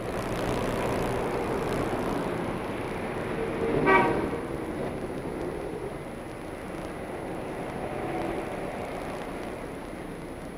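City street traffic noise, with one short vehicle horn toot about four seconds in.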